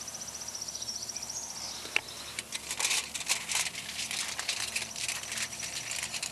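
Aluminium foil crinkling and rustling in irregular crackles as it is handled, starting about two and a half seconds in, after a single sharp tap. Early on an insect trills rapidly.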